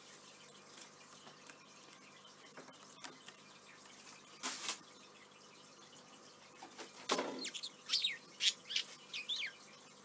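Budgerigar giving a run of short, quick chirps in the last few seconds, after a couple of brief noisy bursts earlier on.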